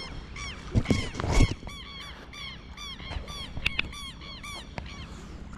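A bird calling over and over, a quick series of short, arched, high calls about three a second. Two low thuds come about a second in.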